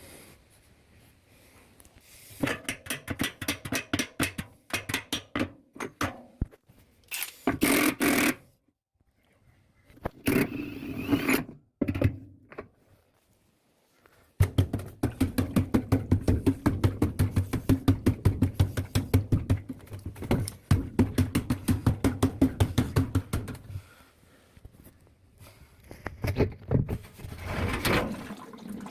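Hand tool working on the parts of an LG top-loading washing machine being taken apart: several runs of rapid scraping and clicking strokes, with short pauses between them. The longest run lasts about nine seconds at roughly four strokes a second.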